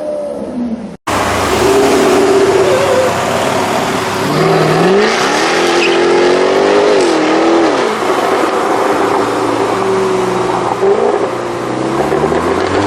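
Jaguar F-Type R's V8 revving hard under acceleration, its pitch climbing steeply, dropping back, then climbing again near the end, over tyre noise. The sound cuts out abruptly for an instant about a second in.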